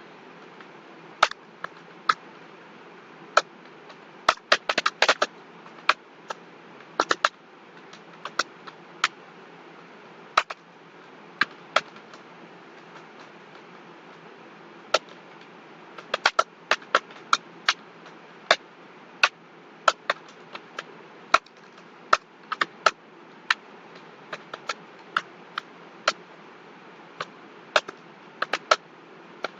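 Keystrokes on a computer keyboard: single sharp clicks at an irregular, unhurried pace, with quick runs of presses about five and seven seconds in, over a steady hiss.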